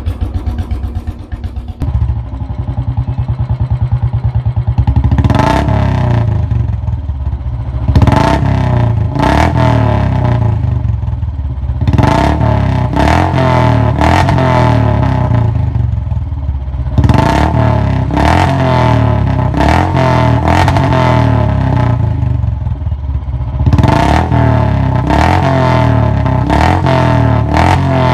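Royal Enfield single-cylinder engine running through a hollow, baffle-less silencer: a steady thumping idle, then repeated throttle blips about a second apart, each bringing loud sharp cracks from the open exhaust.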